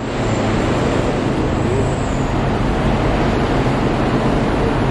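Diesel coach engines idling: a steady low hum under a broad, even rush of noise.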